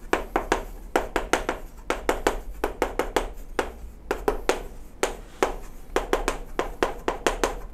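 Writing on a board: rapid, irregular taps and scratches, about five a second, with a brief lull about four seconds in.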